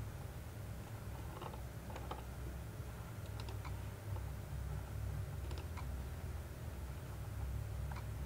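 Scattered short clicks of a computer being operated, coming singly or in pairs every second or two, over a steady low hum.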